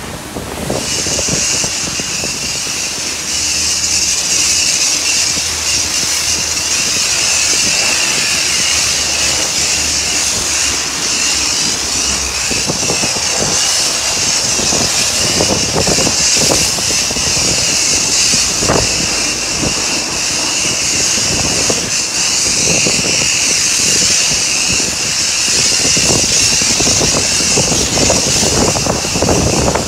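High-pressure foam lance at a self-service car wash spraying thick foam onto a car. A loud, steady hiss starts about a second in and holds throughout, with an uneven spatter underneath as the jet plays over the bodywork.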